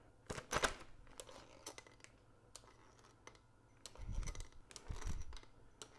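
Scattered light metallic clicks and clinks of hand tools and bolts, with two soft low thumps about four and five seconds in.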